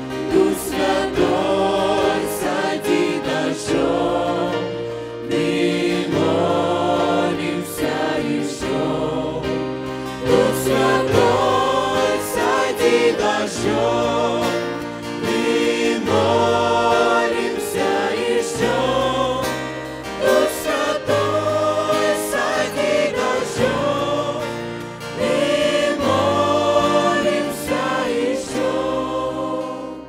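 Mixed youth choir singing a worship song through handheld microphones, with instrumental accompaniment holding steady bass notes that change every second or two.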